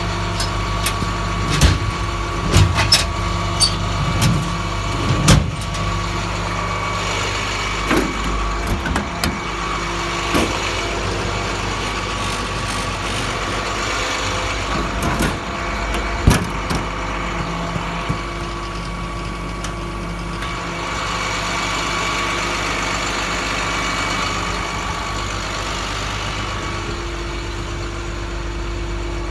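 Diesel engine of a 2009 International DuraStar service truck idling steadily. Over it come a run of sharp metal clacks in the first ten seconds or so and one more about 16 seconds in, from toolbox compartment doors and latches being worked.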